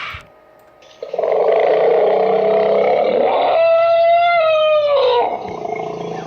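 One long elephant call starting about a second in: a rough, noisy first half that turns into a clear trumpeting note, falling in pitch before it stops.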